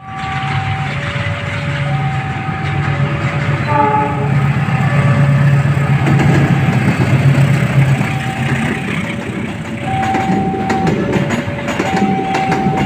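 A level-crossing warning alarm sounds throughout as an alternating two-tone signal, changing pitch about once a second, while a diesel-hauled passenger train passes. The locomotive gives a brief horn blast about four seconds in, and its engine rumbles low. In the last few seconds the passing coaches add a clatter of wheels over the rail joints.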